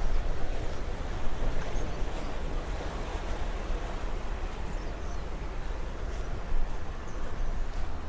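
Outdoor ambience dominated by wind on the microphone: a steady low rumble with an even hiss over it, and faint scattered ticks.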